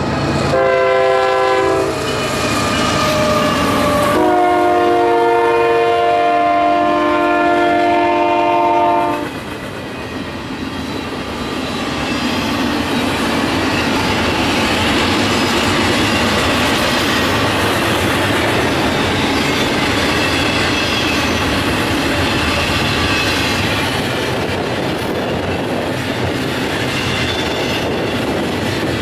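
Diesel freight locomotives sound a multi-chime air horn in two blasts, a short one and then a longer one of about five seconds, as they pass. After that, double-stack intermodal container cars roll steadily by on the rails.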